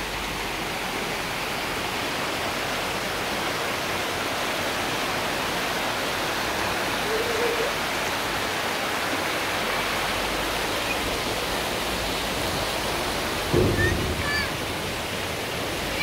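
Shallow mountain stream rushing over stones, a steady rush of water. A brief low thump comes about three-quarters of the way through, and a few short high chirps come near the end.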